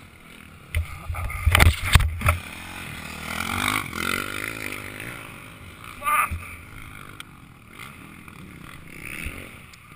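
Motocross bike engine running at low revs, with a cluster of loud knocks about two seconds in.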